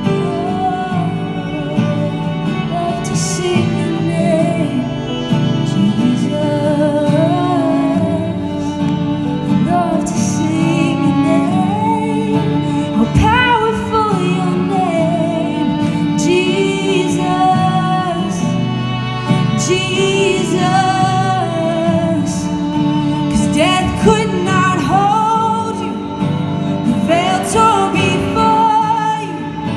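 Live worship band playing a slow song, with strummed acoustic guitar and violin under a woman's voice singing a gliding, held melody, all through the hall's PA.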